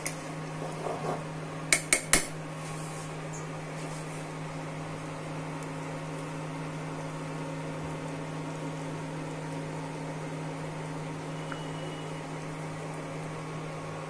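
A spoon taps three times in quick succession on the rim of a steel cooking pot about two seconds in, after a little stirring. Under it the electric infrared cooker hums steadily.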